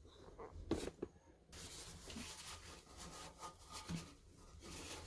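A couple of light clicks, then about a second and a half in a hiss of water starts as the new toilet tank fill valve begins to fill the tank with the supply just cracked open.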